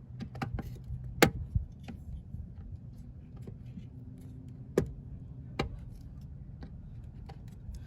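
Sharp clicks and small snaps of pliers working at a plastic door sill trim panel and its push-in retainer clip. The loudest clicks come about a second in and near five seconds in.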